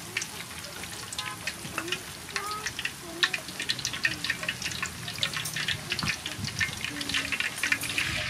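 Rice-flour-battered shrimp deep-frying in a wok of hot soybean oil: a steady sizzle packed with irregular crackling pops.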